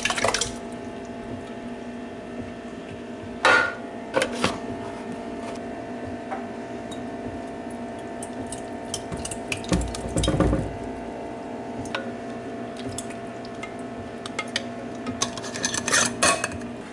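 Kitchenware knocking and clinking on a countertop: a plastic pitcher, a plastic funnel and a glass jar handled while thick yogurt is poured, with a low thump about ten seconds in. Near the end, a quick run of clicks as a metal lid goes onto the glass jar, over a steady low hum.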